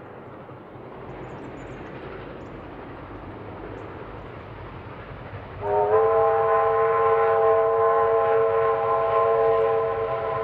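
Beyer-Garratt steam locomotive 6029's chime whistle sounding one long, steady blast of several tones at once, starting suddenly a little past halfway. Before it there is only faint background noise.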